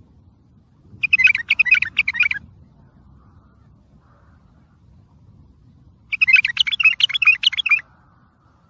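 Wild bulbul singing two quick phrases of rapid, sliding notes, one about a second in and another about six seconds in, each lasting about a second and a half.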